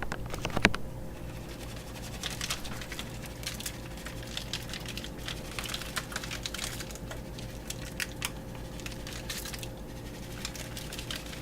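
Irregular light clicks and crinkles of hands handling bacon and its packaging, over a faint steady hum.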